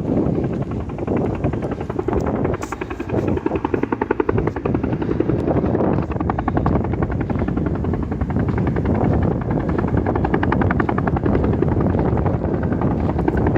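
Helicopter running, its rotor blades chopping in rapid, even pulses that hold steady throughout.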